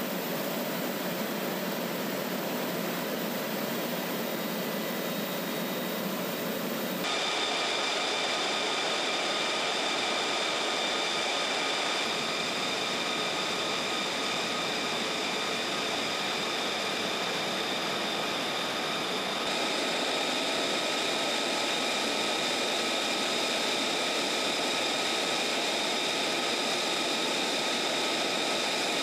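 F-35A fighter jets' F135 turbofan engines running on the ground: a steady rushing hiss with a high turbine whine. The sound changes abruptly twice, and from about a quarter of the way in the whine carries several steady high tones.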